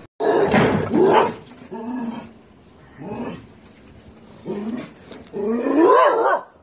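A dog barking and whining in a run of about five pitched calls; the loudest come right at the start and near the end, the last one longer and rising then falling in pitch.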